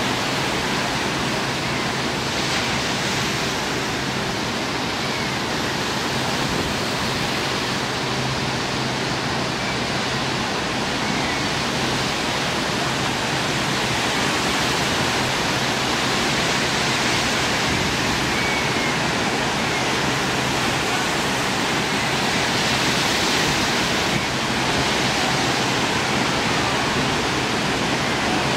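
A steady, even rushing noise with no distinct events, such as wind or water noise on an outdoor recording.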